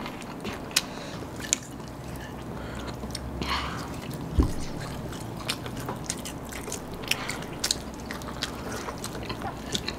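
Mouth sounds of people eating crispy-coated fried chicken: crunchy bites and chewing, heard as scattered small crackles and clicks. There is one low thump about four and a half seconds in.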